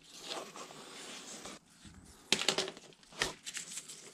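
Gloved hands handling a plastic half-face respirator: rustling, with a quick run of sharp clicks a little over two seconds in and another click about a second later.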